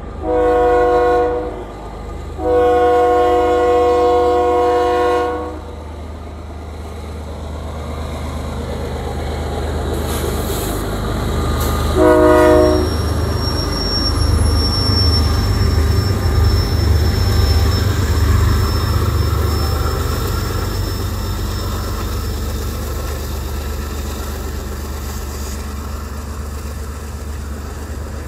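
BNSF diesel freight locomotives sounding a multi-note horn three times: a short blast, a long blast, then a short blast about 12 seconds in. The diesel engines' rumble then builds and is loudest as the locomotives pass, with a steady high whine, before easing off into the steady rolling of double-stacked intermodal container cars.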